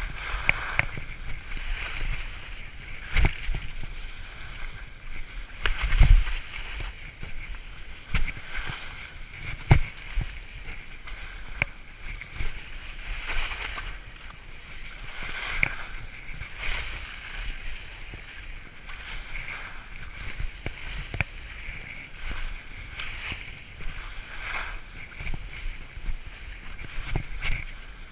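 Skis hissing and scraping through soft spring snow on a ski run, with several heavy low thumps, the loudest about six seconds in.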